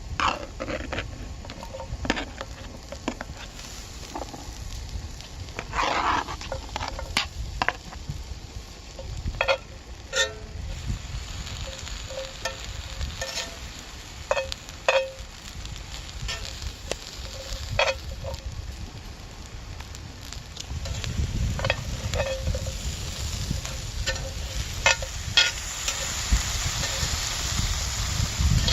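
Food sizzling in a hot pan, the hiss setting in partway through and growing louder near the end, with scattered sharp clinks and knocks of a utensil against the pan.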